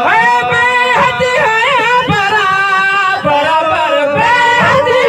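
Male voices singing a Sindhi Sufi song, holding long notes that slide and waver up and down, with short low thuds beneath.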